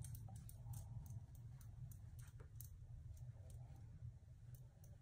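Faint, irregular light ticks and clicks, several a second, from dabbing powder foundation onto the face with a handheld applicator, over a low steady room hum.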